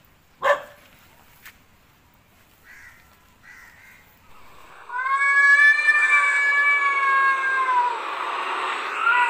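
A single short dog bark about half a second in, then from about five seconds in a domestic cat's long, drawn-out meow lasting about three seconds and falling at its end, with another meow starting near the end.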